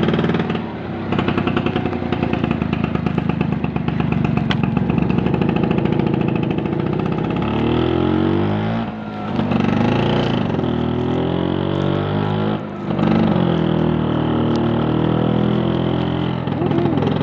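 Vespa PTS scooter's two-stroke single-cylinder engine running under way, its note rising and falling with the throttle. The engine sound dips briefly three times: about a second in, about nine seconds in and near thirteen seconds.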